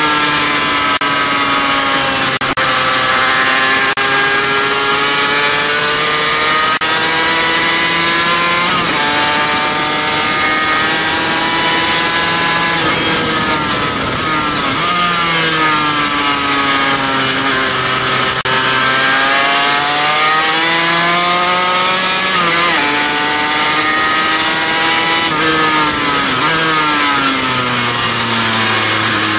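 Car engine heard from inside the cabin while it is driven hard on a race circuit. Its pitch climbs steadily under acceleration, then drops or jumps at gear changes and braking, over and over, with steady wind and road noise underneath.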